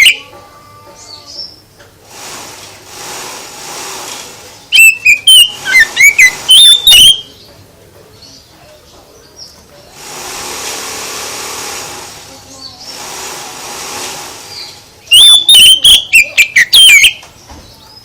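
Songbird singing in two loud bursts of rapid, sweeping whistled phrases, each about two seconds long, with softer hissing between them.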